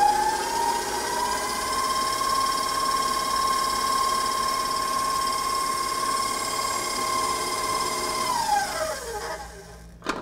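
KitchenAid Professional HD stand mixer motor running with a steady whine as the flat beater mixes the wet cookie-dough ingredients. It speeds up right at the start and winds down near the end, followed by a click.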